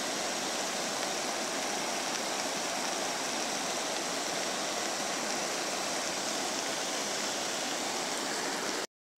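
A wadi in full flood, its muddy floodwater rushing past in a steady, even roar of water that cuts off abruptly near the end.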